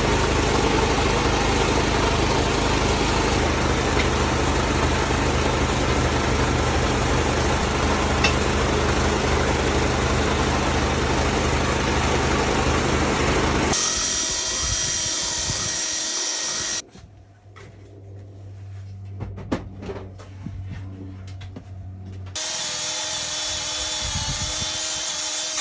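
A motor-driven tool or machine running steadily and loudly, changing pitch about 14 seconds in and cutting off a few seconds later; it starts up again near the end, part of work on a flat tire.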